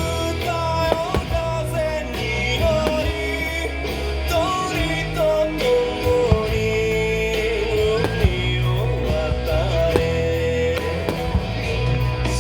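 A rock song with a singing voice and a steady bass line playing loudly, with a few sharp bangs cutting through it.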